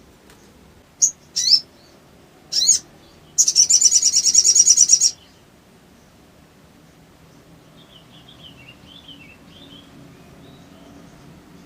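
A sogon (sogok ontong) bird calling. Three short, sharp chirps are followed by a loud, fast rattling string of repeated notes lasting under two seconds, then faint, softer twittering.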